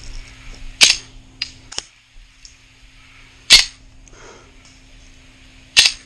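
Airsoft gun fired in three single shots, each a sharp crack, spaced a little over two seconds apart, with a couple of small clicks shortly after the first shot.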